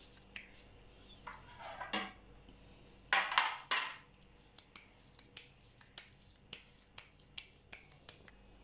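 Hands pressing and rolling raw minced beef into kofta balls around boiled eggs: a run of small wet, sticky smacks and squelches between the palms, with a louder squish about three seconds in.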